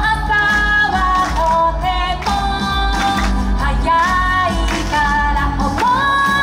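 Japanese pop song: a woman singing long, held notes over a backing track with a strong, pulsing bass.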